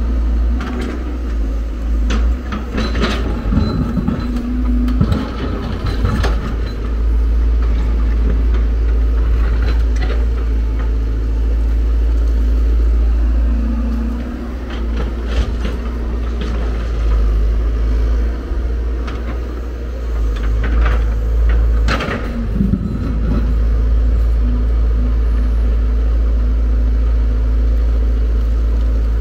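Hyundai R170W wheel excavator's diesel engine running steadily under hydraulic load, its note rising briefly now and then. Sharp knocks and clatter of stony earth in the bucket and dropping into the steel dump-truck body come in clusters a few seconds in, around the middle, and again about twenty seconds in.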